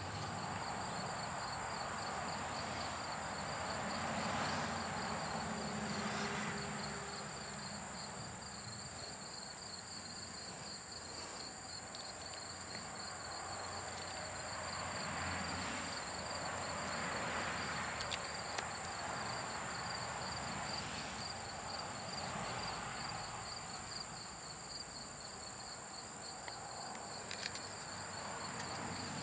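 Crickets trilling steadily, a high, fast-pulsing chirp that never lets up, over a soft hiss that swells and fades every few seconds, with a few faint ticks.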